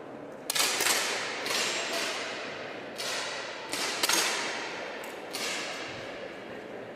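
10 m air pistols firing in a shooting hall, about eight sharp shots at uneven intervals from several shooters on the line, each shot echoing in the hall.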